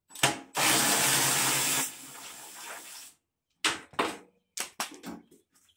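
Cordless drill with a socket extension running to back out a bolt under the mower's plastic fender: a loud steady whir for over a second, then running on more quietly for about another second. A few short sharp clicks and knocks from handling the tool and parts follow.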